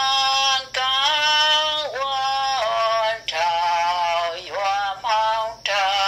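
A single high-pitched voice singing, holding long notes of about a second each that slide in pitch at their ends, with no instruments.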